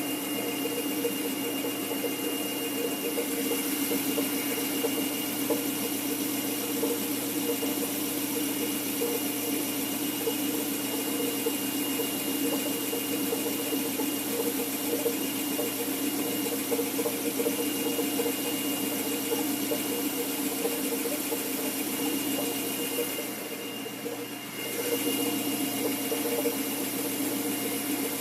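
BMW M3's S65 V8 idling hot, with a steady thin high squeal over the engine note. It carries the odd noise from beneath the engine that the owner says sounds as if something were loose. The sound briefly drops for a second or so near the end.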